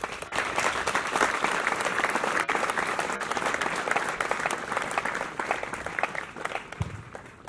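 Audience clapping, starting suddenly and fading away toward the end.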